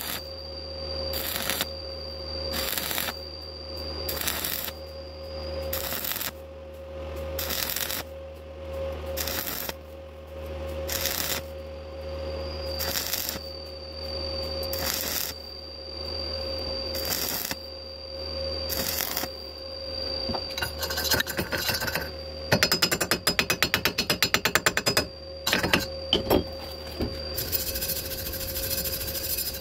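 Stick welding arc crackling on thin steel square tube with a 2.5 mm rod at about 75 amps, surging in a rhythm about once a second over a steady machine whine. In the last few seconds, rapid clicking and then a wire brush scrubbing the bead in fast strokes.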